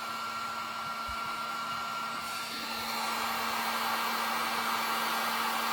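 Electric heat gun running steadily, blowing hot air onto heat-shrink tubing: a constant rush of air with a steady hum and a thin whine, getting a little louder about halfway through.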